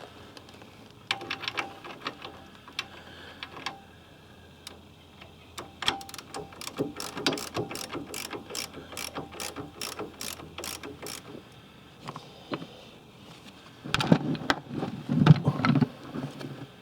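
Ratchet spanner clicking in a steady run, about four clicks a second, as the brake caliper's mounting bolts are wound out; louder metal knocks and clatter near the end.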